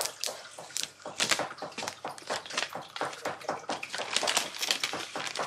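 Seal wrapping being peeled and torn off a new iPhone 12 mini box: a dense crackling and rustling of the wrap, thickest near the start and again near the end.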